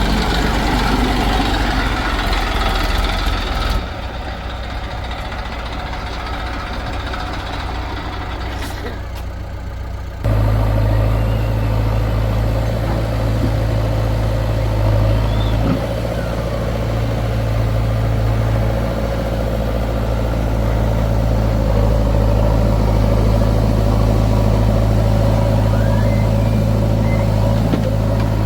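Heavy diesel machinery engine running with a steady low drone. The sound drops back about four seconds in and comes back up abruptly about ten seconds in.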